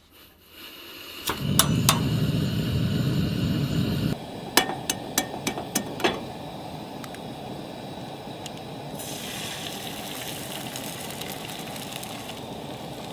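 Gas camp stove burner lit with a few sharp clicks of the igniter, followed by a loud steady rush of gas and flame that stops suddenly. Then a quick run of light metallic clinks and taps at the pan, and a steady burner hiss with sizzling in the hot pan from about nine seconds in as eggs fry.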